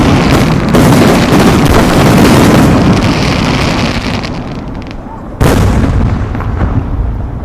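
Fireworks going off: a dense barrage of overlapping crackles and booms that thins out after about four seconds, then a single loud bang about five seconds in that fades away.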